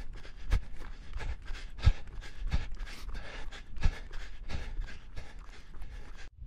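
Footsteps at a steady walking pace, about one every two-thirds of a second, over faint hiss and handling noise.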